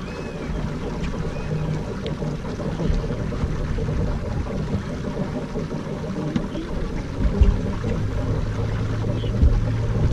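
Steady low rumble of wind and water on an open fishing boat, with a few faint chirps. A low steady hum comes in about seven seconds in.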